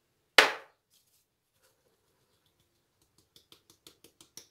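A plastic flour sieve knocked and tapped over a steel mixing bowl while sifting flour: one sharp knock about half a second in, then from about three seconds in a run of quick light taps, about six a second, growing louder.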